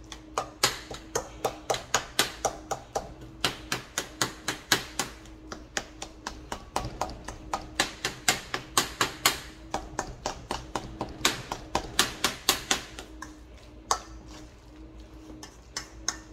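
A utensil mashing and stirring guacamole in a bowl, clicking against the bowl in quick repeated taps, about three a second, with a lull near the end.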